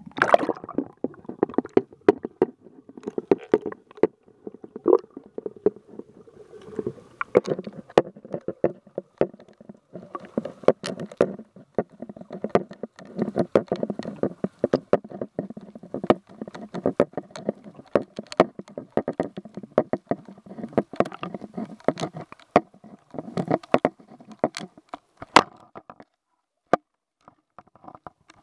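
Underwater sound picked up by a camera in a waterproof housing as it sinks on a fishing line: a muffled water rumble with frequent sharp clicks and knocks and a steady low hum underneath. The clicking stops near the end.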